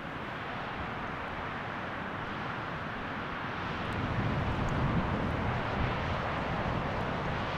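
Steady rushing of a mountain stream or waterfall, with a low rumble that swells a little about four seconds in.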